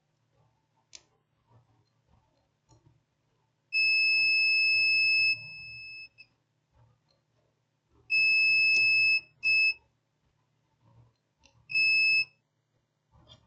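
Digital multimeter's beeper sounding in diode mode as the test probes touch points on a TV main board. One long steady high beep of about a second and a half that drops in level near its end, then three shorter beeps.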